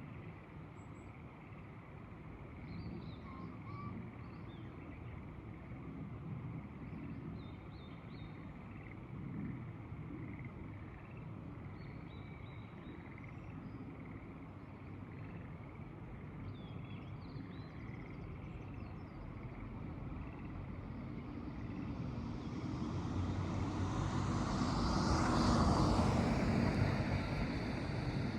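Rural rice-terrace ambience: steady low outdoor noise with faint, scattered high chirps. In the last third a broad rush of noise swells to a peak and then begins to fade.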